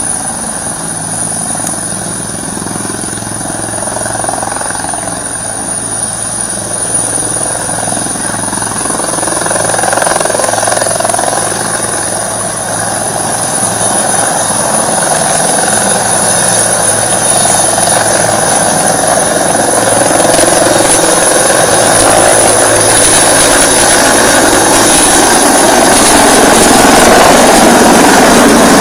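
Helicopter lifting off and climbing away, its rotor and engine noise growing steadily louder, with a steady high whine throughout.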